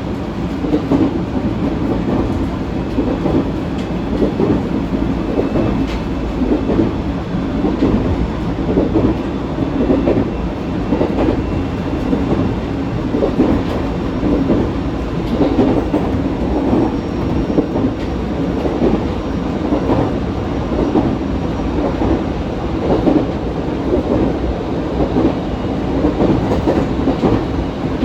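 Echigo Tokimeki Railway ET127 series electric train running along the line: a steady rumble of wheels on rail with repeated clickety-clack over the rail joints.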